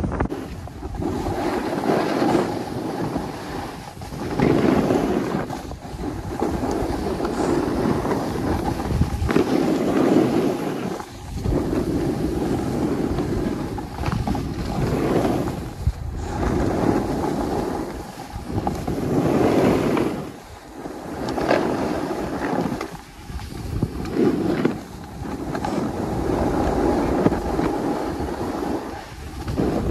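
Wind rushing over the microphone while skiing downhill, with skis scraping on the snow; the noise swells and drops every second or two.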